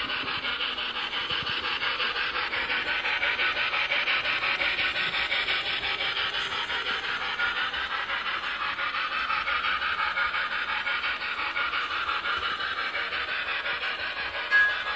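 Model 4-8-4 Daylight steam locomotive and its train running at speed on the layout track, a steady rhythmic rasping rumble of wheels and motor.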